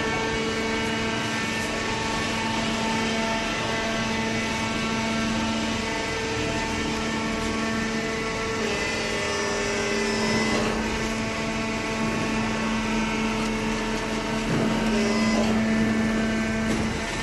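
Hydraulic baler running: a steady machine hum, with a slight change in pitch partway through and a few light knocks.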